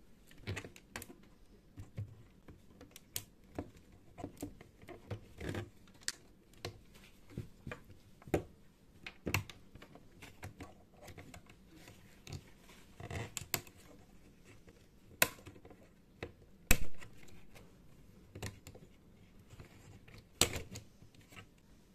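Irregular plastic clicks and light knocks as a black plastic belt pulley is handled and pressed onto its shaft in an open plastic machine case. One knock about three quarters of the way through is sharper and louder than the rest.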